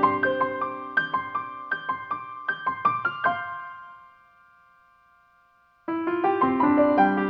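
Background piano music. A phrase of struck notes fades away and is almost silent for about two seconds, then a new phrase starts again about six seconds in.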